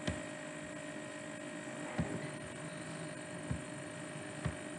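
Steady electrical mains hum on the recording, with a few faint clicks.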